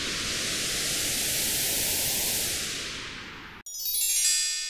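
Logo intro sound effect: a swelling white-noise whoosh with a sweeping filter that rises and then falls, cut off abruptly near the end. A bright bell-like chime hit follows and rings out.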